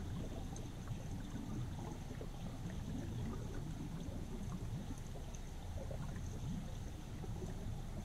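River current heard underwater through a submerged GoPro HERO6 Black: a steady, muffled low rushing with small scattered ticks.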